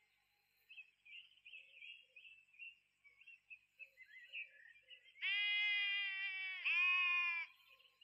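A goat bleating: two loud, long, high-pitched bleats about five seconds in, run together, the second dipping in pitch partway through.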